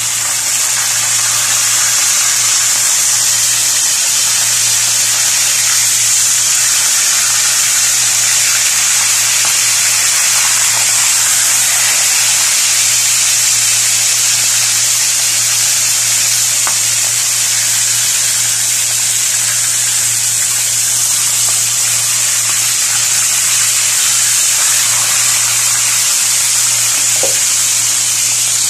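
Talakitok (trevally) steaks frying in a pan of hot oil: a loud, steady sizzle, with a steady low hum underneath.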